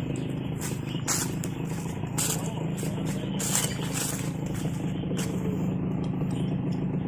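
A motor vehicle's engine running steadily in a low drone, with several short sharp rustling clicks scattered through it.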